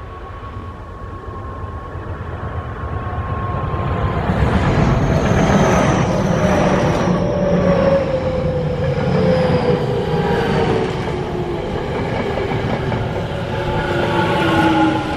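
A Tokyo Metro 10000-series ten-car electric train approaches and runs close past, its wheels clattering over the rail joints and its traction motors whining. The whine falls slowly in pitch. The sound grows louder over the first few seconds and stays loud as the cars go by.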